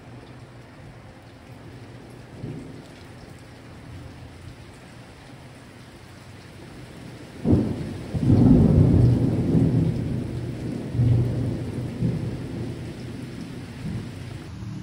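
Steady rain falling, then about halfway through a sudden clap of thunder that rolls and rumbles on for several seconds before dying back into the rain.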